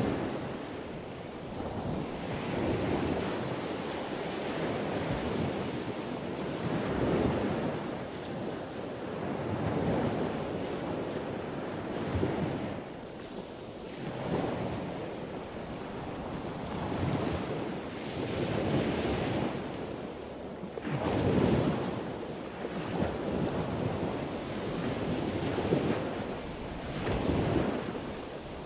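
A steady rushing noise that swells and fades every two to four seconds, like surf washing in and out.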